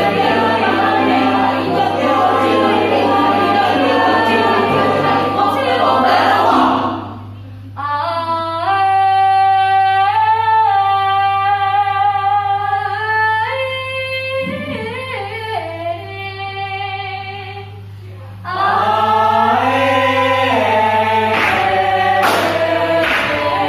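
School choir singing: a dense full-choir passage breaks off about seven seconds in. A softer stretch of long held notes follows, and the full choir comes back in near the end with a few sharp percussive hits. A steady low hum runs underneath.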